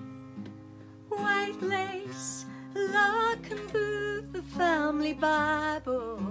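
A woman singing a slow folk song with vibrato over acoustic guitar accompaniment; the voice comes in about a second in, over guitar already playing.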